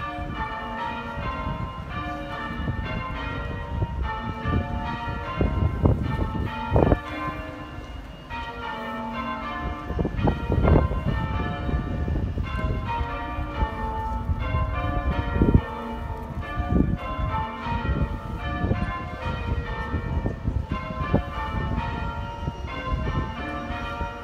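Church bells ringing in changes: a peal of overlapping bell strokes that carries on throughout, with a few heavier low thuds mixed in about a quarter, a half and two-thirds of the way through.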